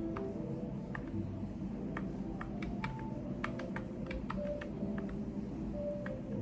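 Intermittent typing on a computer keyboard: scattered, irregular keystroke clicks, a few at a time with short pauses, over a steady low background hum.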